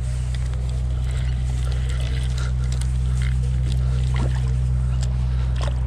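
Steady low drone of a motorboat engine running on the water, with light scattered clicks and ticks over it.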